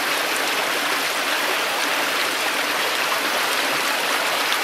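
Small rocky stream running, a steady rush of water over the rocks.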